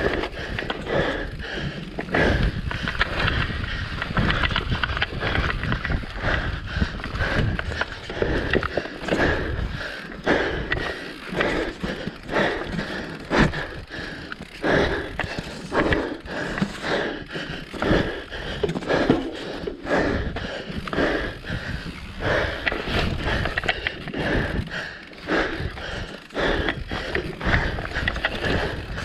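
Mountain bike ridden fast down a rough dirt forest trail: tyres rolling over dirt and roots, with the bike's chain, frame and suspension rattling and knocking over the bumps.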